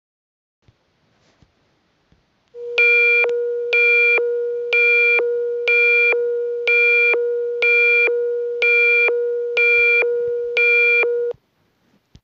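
Electronic alert tone for an emergency broadcast: a steady low tone with a higher beep pulsing over it about once a second, nine beeps. It starts about two and a half seconds in and cuts off suddenly a second before the end.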